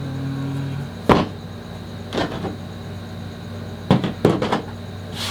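Five or so sharp knocks or thuds, the loudest about a second in and a quick cluster near the end, over a steady low hum.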